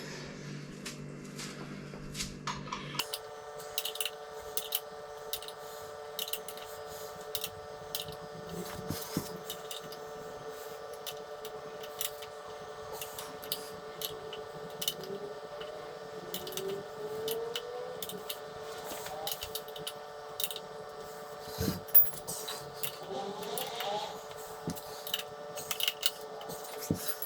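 Scattered clicks and light metallic taps of hand tools being worked on the motorcycle's bolts, over a steady hum that changes abruptly about three seconds in.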